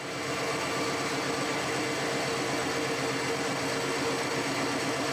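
Harrison 140 metal lathe running at a steady speed while a turning tool skims the outside diameter of a steel workpiece held in the chuck.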